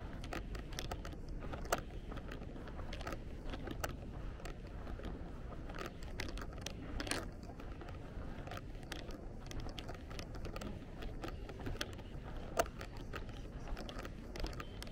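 Outdoor street ambience: a steady low rumble with frequent sharp taps and clicks at irregular intervals, some a little louder than the rest.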